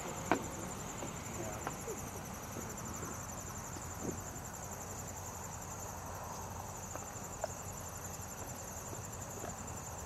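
Crickets trilling in a steady, high, finely pulsed chorus, with a few brief faint ticks here and there, the sharpest about a third of a second in.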